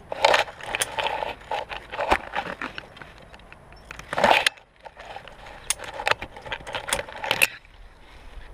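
Via ferrata lanyard carabiners clinking and scraping on the steel safety cable as they are moved along it, a quick run of sharp metal clicks and jangles with a louder scrape about four seconds in, stopping shortly before the end.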